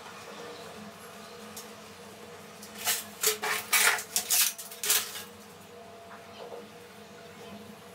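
A flurry of short rustling, scraping handling sounds from sheets of moss mat being moved and laid in a glass tank, starting about three seconds in and lasting about two seconds.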